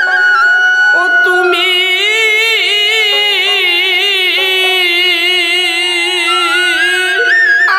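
Bengali Murshidi folk song: a harmonium holds steady notes under a wavering melody line from a bamboo flute and a male singing voice.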